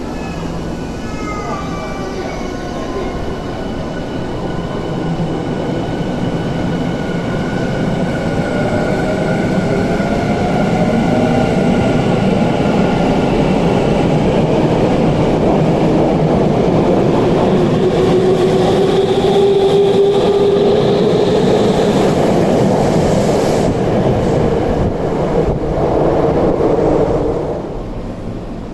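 Tokyu 5050 series electric train pulling away: its Hitachi VVVF inverter and traction motors whine, with a lower tone rising steadily in pitch as the train gathers speed. The rumble of wheels and motors grows louder as the cars pass close by, then drops away near the end.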